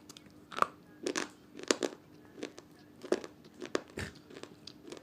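Red slate chips (slate-pencil clay pieces) being bitten and chewed, a run of sharp, irregular crunches about two a second.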